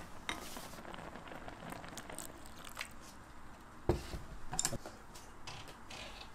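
Quiet kitchen handling sounds: faint clicks and soft rustles, with one dull knock about four seconds in.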